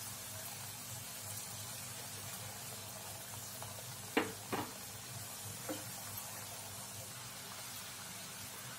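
Heart-shaped wheat-flour dough pieces deep-frying in oil in a kadai: a steady sizzle of bubbling oil, with two sharp clicks a little over four seconds in and a fainter one about a second later.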